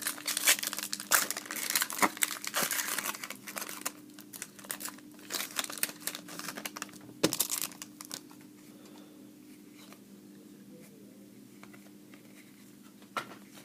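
Trading-card pack wrapper being torn open and crinkled, with the crinkling dying away about eight seconds in and only a few light clicks of cards being handled after.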